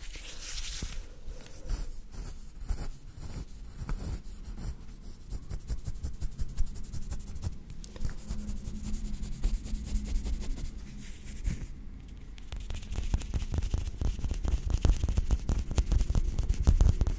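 ASMR hand sounds right at a microphone: fingers rubbing and moving close to it, then fingertips tapping and scratching on the microphone grille. A dense stream of small crackling clicks with low handling thumps, growing denser in the second half.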